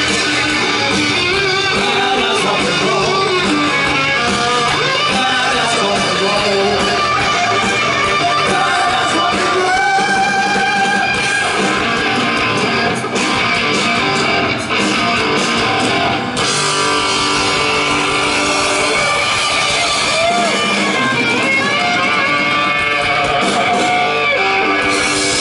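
Heavy metal band playing live, led by loud distorted electric guitar through Marshall amplifiers, with bending melodic lead lines over the band.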